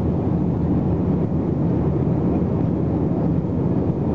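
Steady jet engine and airflow noise heard inside the cabin of an Airbus A321 climbing after takeoff. It is heaviest in the low range and keeps an even level throughout.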